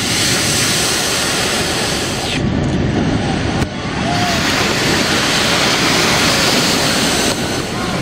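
Storm waves crashing against a seawall and bursting into spray, a continuous loud rush of surf with wind buffeting the microphone.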